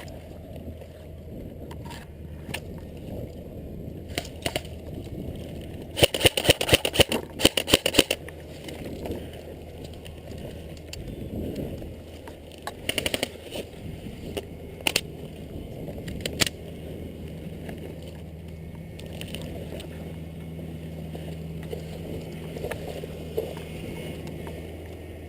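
Airsoft gun firing a quick string of about a dozen sharp shots over two seconds, about six a second, then a few scattered single shots, over a steady low outdoor background.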